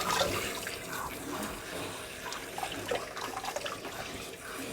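Bath water in a sink lapping and dripping around a puppy being washed, with small scattered splashes.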